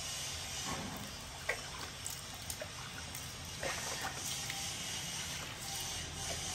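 Water trickling steadily as for a bath, with a few small splashes and light knocks.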